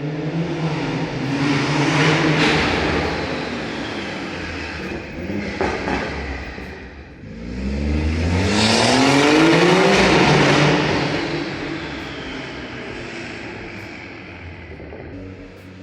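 BMW 340i's turbocharged inline-six running through a Valvetronic axle-back exhaust with both resonators deleted. It pulls loud for the first few seconds and eases off, then about seven seconds in accelerates again with a rising note before backing off.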